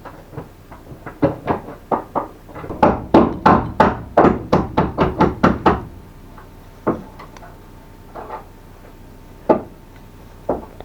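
Knocking on metal gearbox parts during reassembly of the gear-shift mechanism: a fast run of taps, about five a second, then four single knocks spaced apart.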